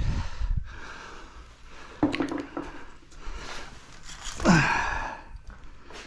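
Knocks and rattles of an old appliance being handled and pried apart for scrap, with a man's short grunt of effort about four and a half seconds in.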